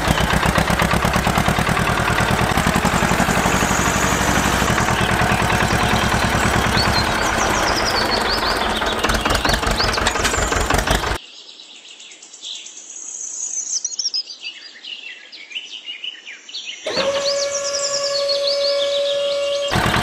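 Tractor engine running with a fast, even chugging, with birds chirping over it. It cuts off suddenly about eleven seconds in, leaving only birdsong. About three seconds before the end a steady motor whine starts as the tipper truck's bed is raised to dump its load of bricks.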